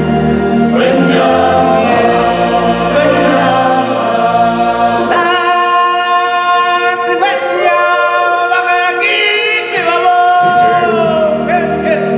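A choir of singers performing a song with music in a live stage show, the voices holding long notes that change every few seconds.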